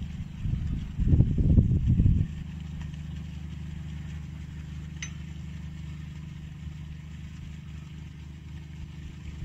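An engine idling steadily with an even low hum. Loud irregular low rumbling covers the first two seconds, and a single sharp metallic clink comes about halfway through.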